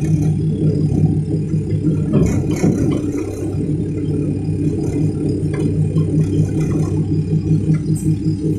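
Cat excavator's diesel engine running steadily, with short spells of rattling and clatter about two seconds in and again near the end.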